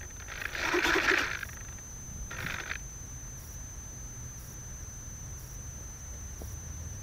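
Quiet field ambience with a steady high-pitched whine. Two short rough noises come in the first three seconds.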